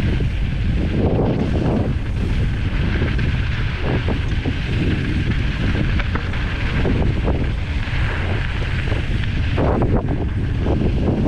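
Wind rushing over the microphone of a mountain bike descending fast on a loose pumice and gravel trail, with the tyres crunching over grit and short clatters as the bike rattles over bumps.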